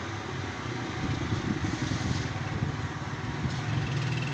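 A motor vehicle engine running: a low, pulsing hum that gets louder about a second in.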